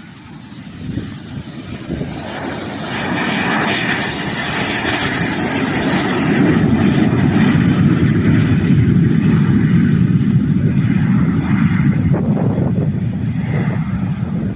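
Cessna Citation business jet's turbofan engines at takeoff power. A thin high whine falls slightly in pitch over a rumble that builds over the first few seconds and stays loud to near the end.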